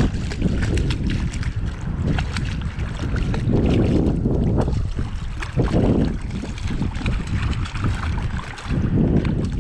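Wind buffeting the microphone in heavy gusts over the wash of sea water, with scattered small splashes and ticks.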